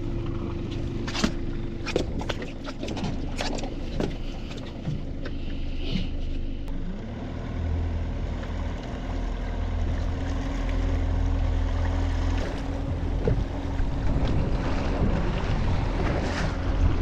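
A 115-horsepower outboard motor running steadily, with several sharp clicks in the first few seconds as gear is handled at the transom. About seven seconds in, the motor's pitch rises as the throttle opens, and a low rumble grows louder.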